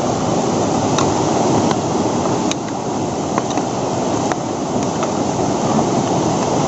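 Steady rushing of a muddy river swollen by flood water, with a few sharp clicks or knocks over it.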